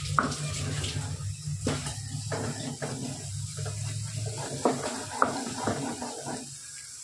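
Wooden spoon stirring yogurt into a thick onion-tomato masala in a non-stick kadai: irregular wet squelching and scraping strokes, over a steady low hum.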